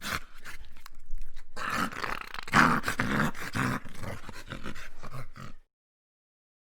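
An animal, dog-like, growling in rough, irregular bursts. It stops abruptly about five and a half seconds in.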